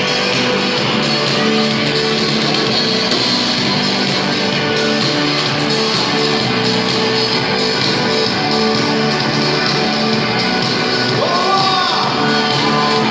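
Live worship rock band playing loud, with electric guitars and some singing.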